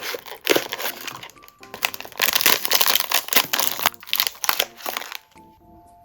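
Packaging wrapper crinkling and crackling in two long handling bursts, stopping about five seconds in, over background music.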